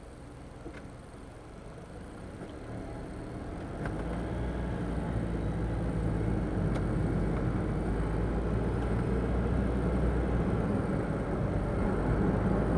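Engine and road noise in the cabin of a 2009 Daihatsu Move kei car, recorded by the dashcam's microphone, growing louder over the first four seconds as the car picks up speed, then running steady.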